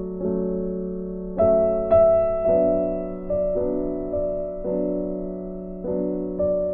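Background music: slow piano chords, each held and ringing before the next, with no beat.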